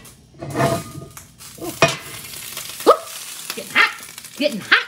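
Pot of beef stew bubbling and hissing as it comes up to the boil, with a few sharp knocks of cookware.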